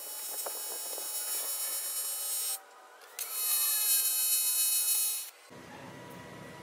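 TIG welding arc on aluminium square tube, running AC, buzzing steadily as tack welds are laid. One weld stops about two and a half seconds in. After a brief pause a second, louder weld follows and cuts off a little past five seconds.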